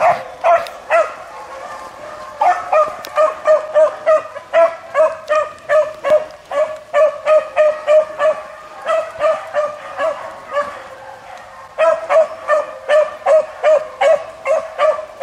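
Beagles baying on a rabbit's trail: a fast, even run of short barks, about three a second, with two short breaks. This is the cry of hounds on the scent of a running rabbit.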